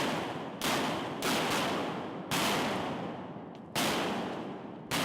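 A volley of about six shotgun shots, spaced roughly half a second to a second and a half apart, each with a long echoing tail.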